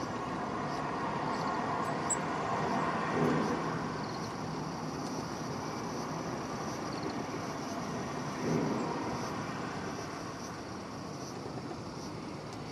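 Steady background hum of road traffic, with two short low swells about three and eight and a half seconds in.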